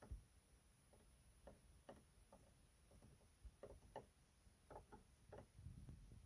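Faint, irregular clicks from the SAAB 9-3's dashboard menu knob being handled and turned, about a dozen scattered small clicks.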